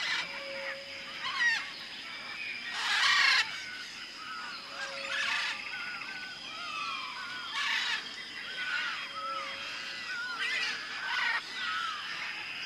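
Jungle ambience: many birds chirping and calling over a steady high insect drone. Several harsh, noisy calls cut through, the loudest about three seconds in, and short low hooting notes come now and then.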